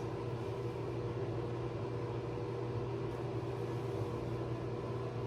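A steady low hum with a faint hiss, unchanging throughout: room background noise.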